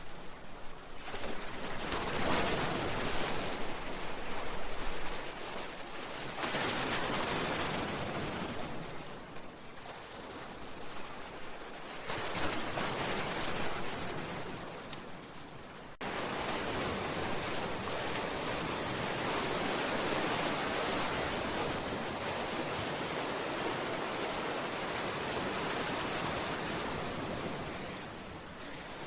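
Sea waves breaking against a seawall, the surf rushing up in swells every few seconds. About halfway through it cuts abruptly to a steadier, continuous wash of surf.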